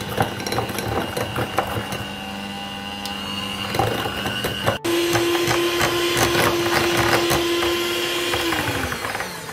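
Electric hand mixer running, its beaters whirring through a thick yolk, sugar and cornflour batter in a glass bowl, with many small clicks as the beaters tap the bowl. The motor hum breaks briefly about halfway, and its pitch drops near the end as it slows.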